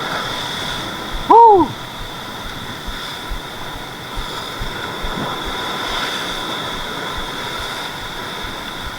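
Steady wash of sea surf breaking on rocks in rough water, a constant even hiss. A short shout of "woo" about a second and a half in.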